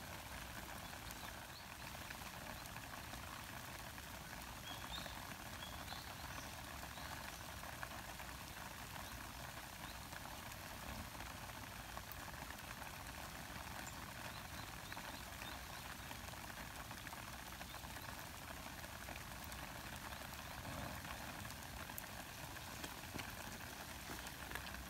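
Light rain pattering steadily on wet stone and leaves, with a few faint high chirps about five seconds in.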